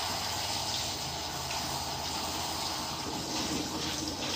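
Kitchen faucet running steadily into a sink, water splashing as something is rinsed under it.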